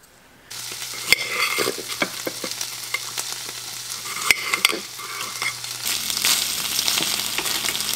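Food sizzling as it fries, with a few sharp clicks of a knife against a ceramic plate while red bell pepper is sliced. Just before six seconds in, the sizzle grows louder and fuller as cubes of tofu fry in a pan.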